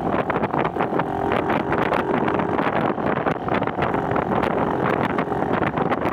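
A vehicle engine running steadily, with wind buffeting the microphone.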